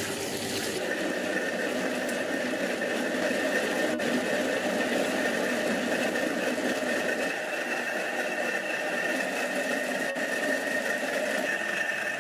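Coffee hulling machine running steadily, a constant mechanical drone with a high whine, as green coffee beans are stripped of their husks.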